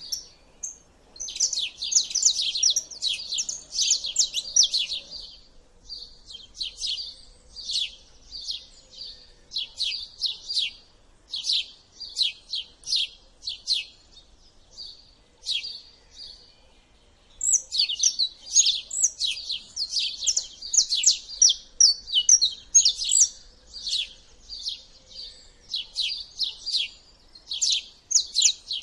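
Wild songbirds chirping and singing together in quick runs of high notes, with a short lull a little past halfway.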